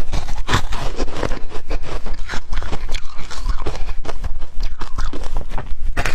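Ice being chewed: a dense, irregular run of crunches and cracks as pieces are bitten and ground between the teeth.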